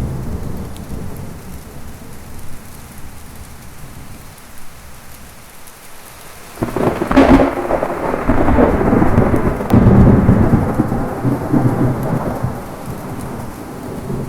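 Thunderstorm with steady heavy rain. About halfway through, a sharp thunderclap breaks in and rolls on as long rumbling thunder, swelling again a few seconds later and slowly dying away under the rain.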